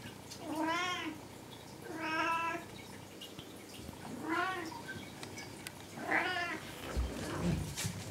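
Long-haired domestic cat meowing four times, a few seconds apart; each meow lasts about half a second and rises then falls in pitch.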